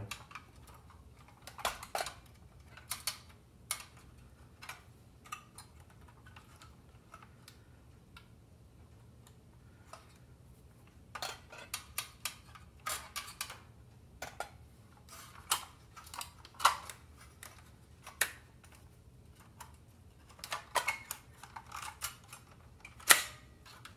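Light, scattered metallic clicks and taps of a steel pick probing the wiring inside a toy robot's sheet-metal body, with the metal parts knocking as it is handled, in small clusters with quiet stretches between.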